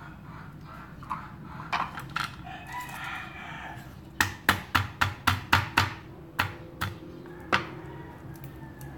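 Garlic cloves being pounded on a wooden chopping board to loosen their skins: about seven sharp knocks in quick succession, roughly four a second, a little over four seconds in, then three more spaced out.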